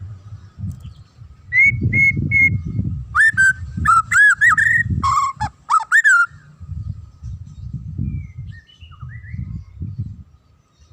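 White-rumped shama (murai batu) singing. Three short whistled notes lead into a quick run of rising and falling whistles that stops about six seconds in, and a few faint notes follow later. Under the song runs a low, uneven rumbling noise.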